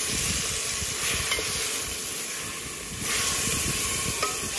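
Chopped tomatoes, green peppers and onions frying and sizzling in an aluminium pressure-cooker pot while a wooden spoon stirs and scrapes through them. The sizzle gets louder about three seconds in.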